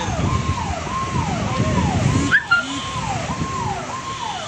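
Fire engine siren sounding a fast repeating wail. Each cycle holds a high note, then slides down, at about one and a half cycles a second.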